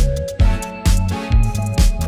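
Background music with a steady drum beat about twice a second, a bass line and held melody notes.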